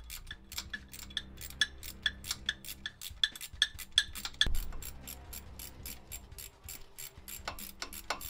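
Socket ratchet clicking rapidly and evenly as the engine mount bolts are undone, with a single low thump about halfway through. Background music underneath.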